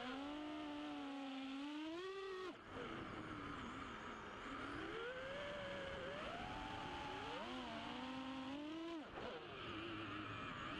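FPV racing quadcopter's brushless motors and propellers whining, the pitch gliding up and down with the throttle. The sound drops briefly twice, about two and a half seconds in and near nine seconds, where the throttle is cut.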